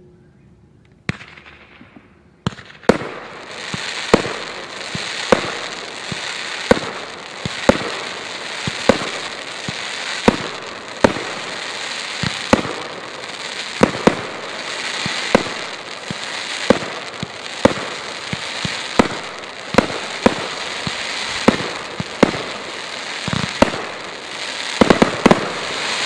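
Consumer firework cake ('Zombie Slayer') firing shot after shot, a sharp report about once a second over a steady crackle from the glittering stars. Near the end a quick cluster of several reports comes in rapid succession.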